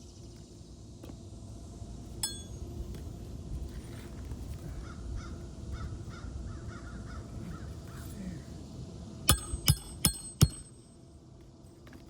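Four quick, sharp hammer blows on a roof snake's metal striker, each with a metallic ring, driving a nail under an asphalt shingle near the end. A single metal clink comes about two seconds in, and a bird calls repeatedly in the middle.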